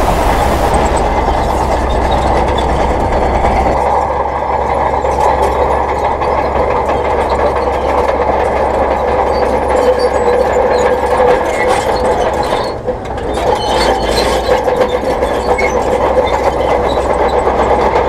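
Heavy dump truck's diesel engine running steadily with a continuous rumble while its raised tipper bed empties soil onto the ground.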